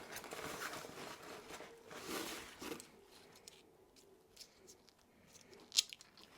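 Packaging rustling and crinkling as guitar accessories are unwrapped and handled, dying away after about three seconds, followed by a few light clicks.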